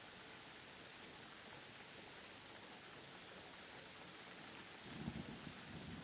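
Thunderstorm ambience: a steady, faint hiss of rain, with a low rumble of thunder starting near the end.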